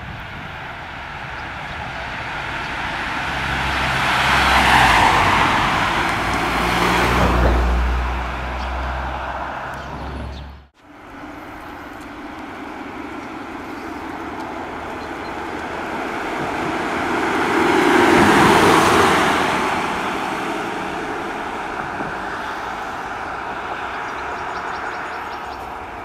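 Cars driving past at speed, their tyre and engine noise swelling and fading twice. The first pass-by, a Škoda Superb estate, has a deep engine rumble under it and cuts off suddenly about eleven seconds in. The second, a Volkswagen Touareg, peaks around eighteen seconds in.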